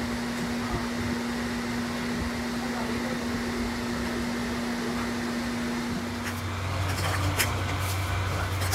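Steady hum and hiss of workshop machinery or a fan. About six seconds in the hum shifts to a lower pitch, and a few light clicks and taps follow near the end.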